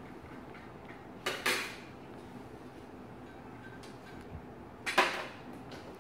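Crockery and glassware clinking as a bowl, plate and glasses are set onto a serving tray: two short clattering knocks, about a second and a half in and again near five seconds, the second louder.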